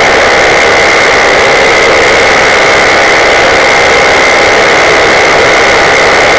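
Paramotor engine and propeller running steadily in flight: a loud, unchanging drone with a constant high-pitched whine.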